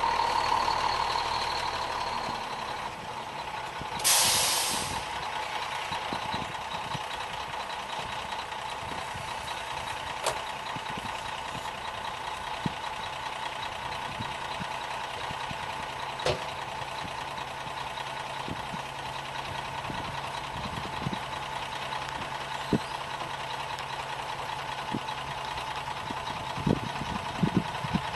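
Sand-delivery truck's engine running steadily, with a short, loud burst of hissing air about four seconds in and a few light knocks later on.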